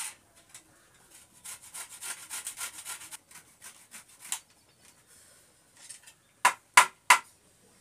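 A carrot being grated by hand on a grater over a steel plate: a run of quick grating strokes, about four a second, then three sharp knocks near the end.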